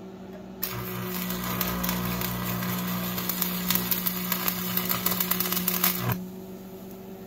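Stick (arc) welding: the arc strikes about half a second in and burns with a dense, crackling sizzle for about five seconds, then cuts off suddenly as the rod is pulled away. A steady low hum runs underneath.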